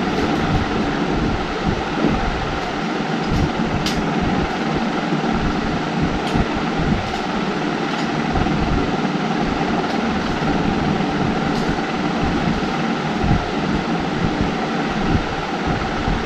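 Steady, loud rumbling background noise, with a few faint clicks from the metal tripod stand's legs and clamps as it is handled and adjusted.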